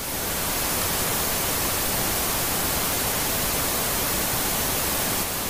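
Steady hiss of analogue TV static, a television-snow sound effect.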